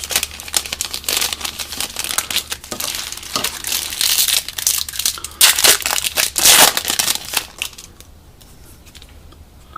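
Trading-card pack wrapper (Topps football) crinkling and tearing open in the hands. The crackle is loudest a little past halfway and stops about two seconds before the end.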